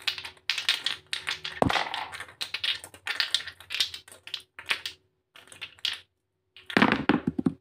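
Small plastic paint bottles clicking and clattering against each other as they are shaken and shuffled in the hands and spilled onto paper: irregular rattling with a few short pauses, densest near the end.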